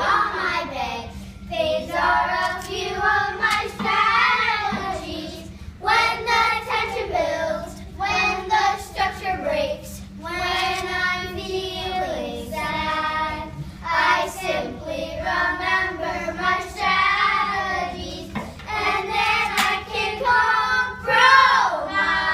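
A small group of children singing together, voices rising and falling through a sung melody with short breaks between phrases.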